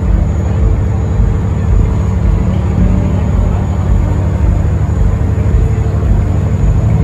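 Steady, loud low rumble of a Ro-Pax car ferry under way, with the ship's engines running and wind buffeting the microphone on the open deck.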